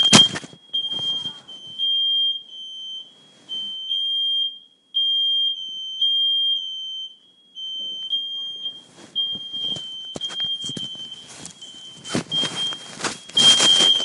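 Household smoke alarms going off in a false alarm, with no fire as the owner says: a loud, high-pitched tone sounding in repeated beeps. A sharp knock at the start, then rustling and knocking from movement in the second half.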